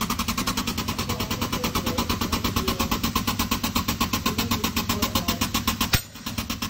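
Air-driven hydraulic foot pump running with rapid, even pulsing as it pressurises a tube-plugging hydraulic ram. About six seconds in, a single sharp crack as the plug's breakaway section shears off at its set pressure, and the pumping stops.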